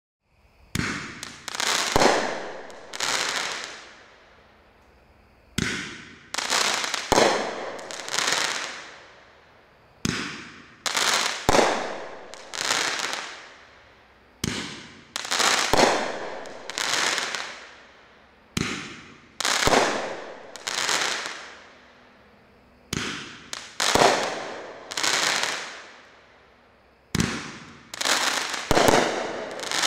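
Robot Revolution 8-shot consumer firework cake firing, starting about a second in: a series of sharp bangs, each fading off over a second or so, coming in loose groups of about three every four to five seconds.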